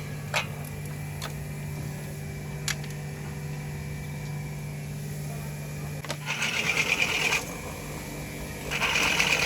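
A steady low hum with a few faint clicks, then two short bursts of rapid mechanical rattling from a power tool, about a second each and a couple of seconds apart.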